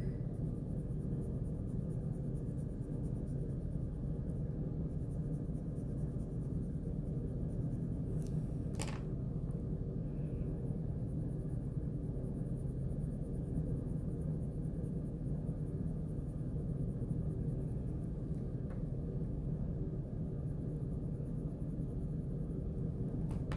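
Crayon rubbing on paper with firm back-and-forth coloring strokes, laying down a crayon gradient. One short click comes about nine seconds in.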